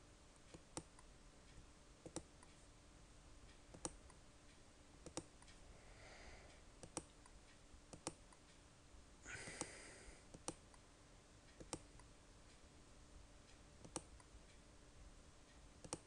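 Near silence over a faint steady hum, broken by faint, sharp computer mouse clicks at irregular intervals about one to two seconds apart. A brief rustle a little past halfway.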